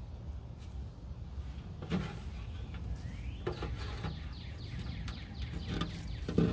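Handling noise from a clear plastic tub: a few sharp knocks, the loudest about two seconds in and just before the end, and scraping and rustling of grass and soil as a hand works inside it. All of this sits over a steady low rumble.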